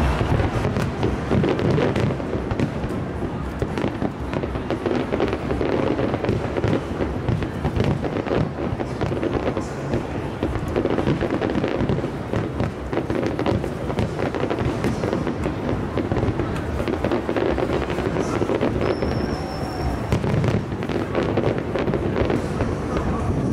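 Aerial fireworks display: a dense, continuous barrage of shell bursts, bangs and crackle, steady in loudness throughout.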